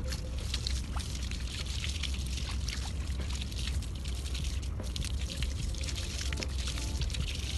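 Water running from a garden hose and splashing over a dog's coat and the wet paving during its bath, over a steady low rumble.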